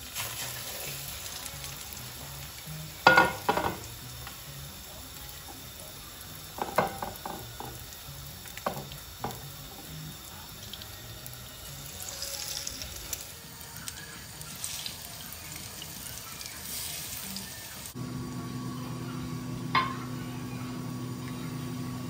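Egg-dipped bread slices frying in hot oil in a nonstick pan, sizzling steadily, with a few sharp knocks of utensils against the pan and bowl, the loudest about three seconds in. A steady low hum comes in near the end.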